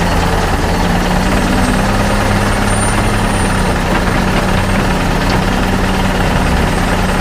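Heavy excavator engine idling steadily as a sound effect, a constant low engine drone.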